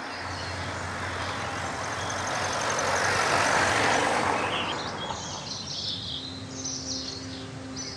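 A motor vehicle passing by on the road, its noise swelling to a peak about three and a half seconds in and fading away by about five seconds. Birds chirp after it passes.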